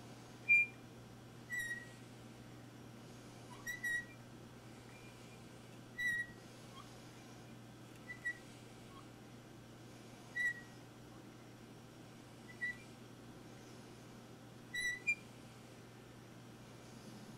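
Hand drill with a one-sixteenth-inch bit being cranked into wood, giving a short high squeak about every two seconds.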